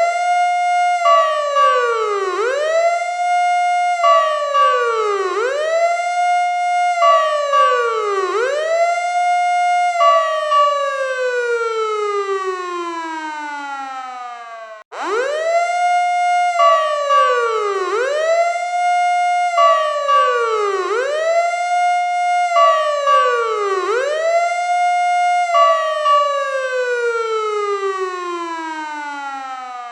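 Fire truck siren wailing: its pitch shoots up, holds briefly and slides down about every second and a half, then sinks in one long slow glide, and the cycle starts over about halfway through. A steady higher tone sounds briefly between some of the rises.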